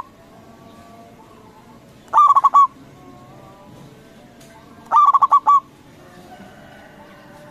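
Zebra dove (perkutut) singing its cooing song: two short phrases about three seconds apart, each a quick run of five or six staccato 'kung' notes.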